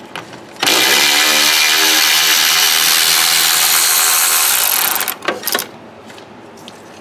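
A handheld power tool runs steadily for about four seconds, spinning out the 10 mm bolt on a brake-line bracket. A few light metallic clicks follow after it stops.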